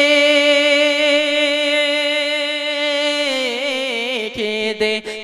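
Young male singer's unaccompanied voice in a Bangla gojol (Islamic devotional song), holding one long steady note that breaks into a wavering, descending run about three seconds in.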